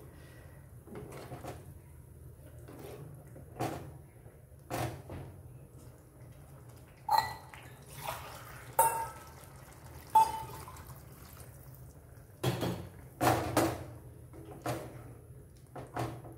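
A spatula stirring chunks of green banana through a thick tomato gravy in a nonstick frying pan: irregular scrapes and knocks against the pan, a few of them ringing briefly, over a low steady hum.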